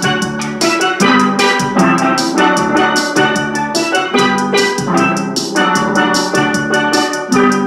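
Three steel pans played together with sticks: a quick, even stream of bright struck notes that ring on as a melody.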